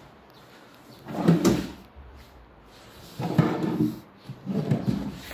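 Wooden drawers of a wall-hung TV unit sliding on their runners, three times: about a second in, around three seconds in, and near the end.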